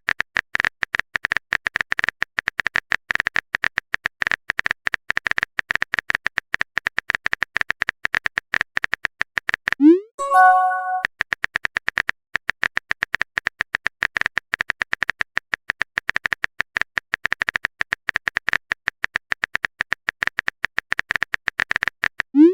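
Typing sound effect: a fast, unbroken patter of keyboard clicks. About ten seconds in it stops for a message sound, a short rising swoop followed by a brief chime, then the clicks start again. The swoop comes again right at the end.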